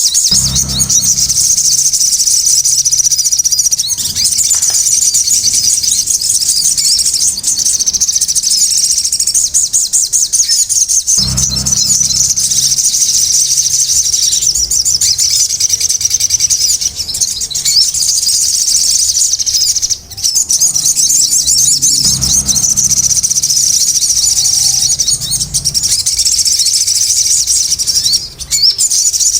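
A sogon songbird calling without pause in a loud, fast, high-pitched chatter. A low rumble rises beneath it three times and fades again.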